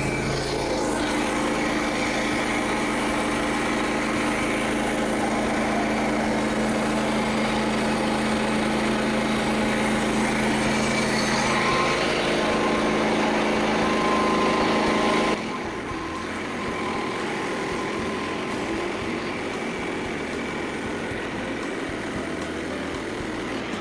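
Small gasoline engine of a portable band sawmill running steadily under load while the band blade cuts through a red oak log. About two-thirds of the way in the sound drops suddenly to a quieter, different running sound.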